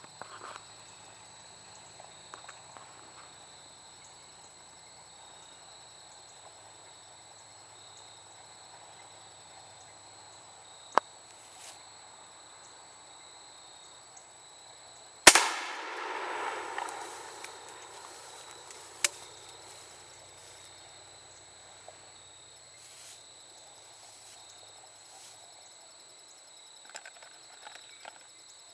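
One shot from a 12-gauge shotgun firing a .69 caliber lead round ball over a Triple Seven black-powder-substitute charge, about halfway through, its report echoing and dying away over a couple of seconds. A single sharp click comes a few seconds before the shot and another a few seconds after, over a steady high insect trill.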